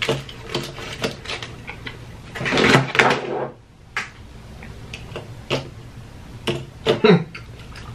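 Close-miked eating sounds: chewing and crunching of fried food such as fries and onion rings, with scattered clicks and mouth smacks and a louder crunchy burst about three seconds in.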